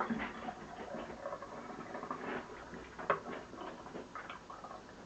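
Home-made honey, lemon and iodine cough syrup being poured from its mixing pot into a bottle: faint trickling with scattered light clicks and taps of the containers, one sharper click about three seconds in.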